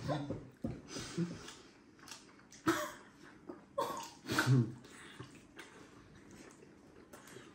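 Wet slurping and sucking mouth sounds from people eating momo in a soupy jhol sauce, broken by short hums and murmurs; the loudest is a brief voiced sound about four and a half seconds in.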